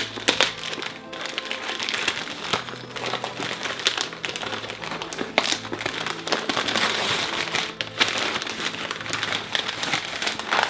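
Gift wrapping paper and tissue paper being torn and crumpled by hand in a steady run of crinkling and crackling, over background music.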